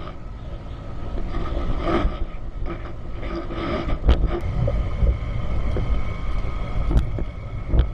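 Motorcycle riding over a rough, rutted dirt track: the engine runs with a steady low rumble, and there are sharp knocks and rattles as it jolts over bumps, about four, seven and eight seconds in.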